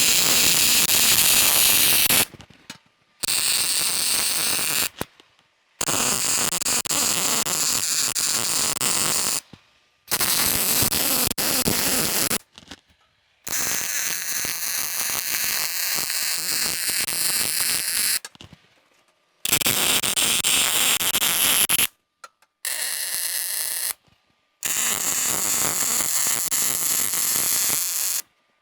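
Welder arc crackling in eight separate runs of a few seconds each, starting and stopping abruptly as steel bumper parts are welded up.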